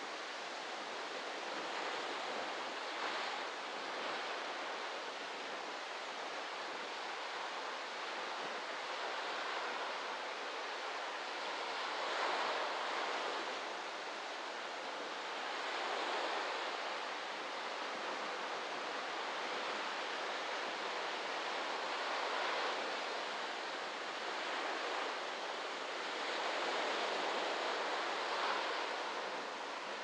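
Small waves breaking on a tropical sandy beach: a steady wash of surf that swells louder every few seconds as each wave comes in.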